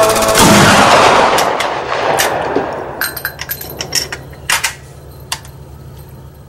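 Gunshots: one very loud shot about half a second in, dying away over a couple of seconds, then a string of sharper, quieter shots at uneven intervals.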